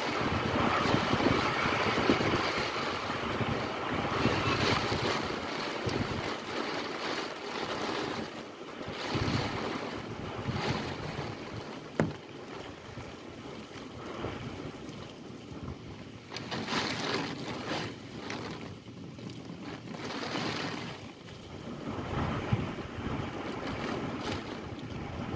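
Hurricane Ian's wind gusting and buffeting the microphone, a rushing noise that swells and eases, loudest in the first few seconds. Two sharp taps cut through it, about twelve seconds in and near the end.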